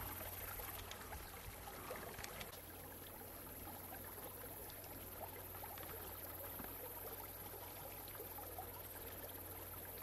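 Faint steady rush of a creek flowing into a millpond, with a low steady hum underneath.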